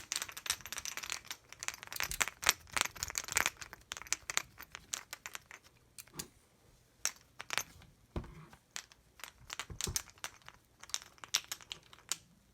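Clicks, scrapes and rustling from hands handling the parts of a GSG AK-47 .22 rifle during reassembly. The handling is dense for the first few seconds, then thins to scattered sharp clicks.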